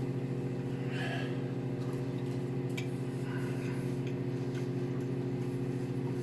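A steady electrical hum from a household appliance, with a few faint clicks.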